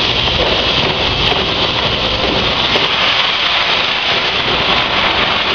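Peanut roasting machine running with a batch of nuts tumbling inside: a steady, even rushing noise.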